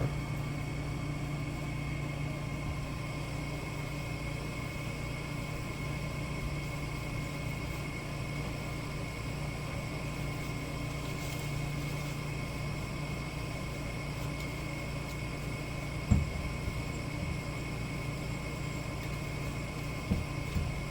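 Steady mechanical hum, with one sharp knock about three-quarters of the way through and a couple of lighter knocks near the end.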